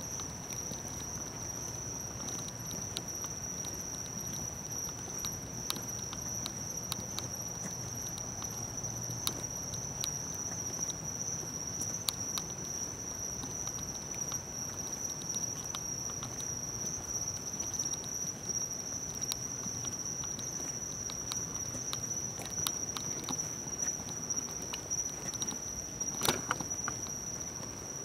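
A steady high-pitched tone with scattered light ticks and clicks, and a sharper knock near the end.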